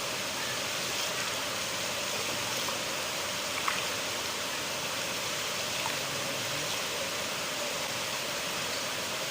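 River water flowing steadily, an even rushing with a few brief faint ticks.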